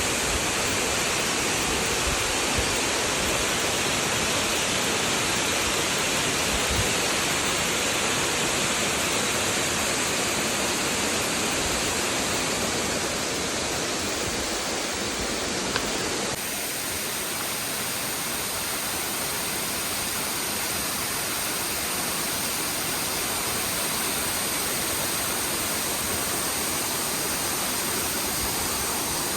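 Waterfall rushing: a steady wash of falling water. Its tone shifts abruptly about halfway through.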